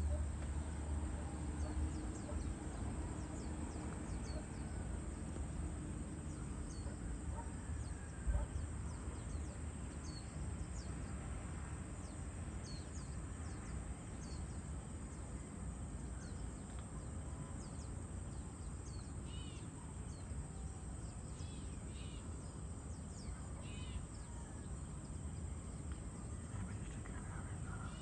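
Birds chirping with many short, high chirps over a steady low background rumble, with a few louder calls about two seconds apart in the second half. A single brief knock about eight seconds in.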